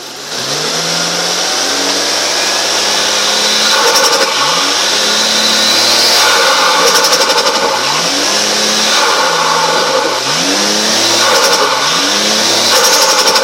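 Turbocharged Toyota 1G-FE 2.0-litre straight-six being revved repeatedly in short blips. Each time the throttle snaps shut, the turbo gives a rapid fluttering chatter: compressor surge as the boost has nowhere to vent.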